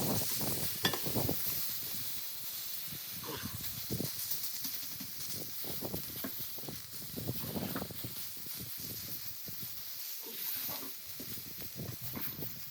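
A steady hiss with many short, soft knocks and rustles scattered through it.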